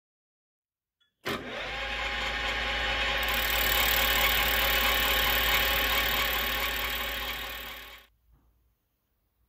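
Metal lathe running and turning an aluminium motorcycle piston held in its chuck: a steady machine whine with cutting noise. It starts abruptly about a second in and cuts off suddenly near the end.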